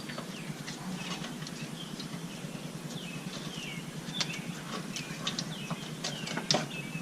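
Small birds chirping, short falling chirps scattered throughout, over scattered light clicks and taps of parts being handled. A sharper knock comes about six and a half seconds in.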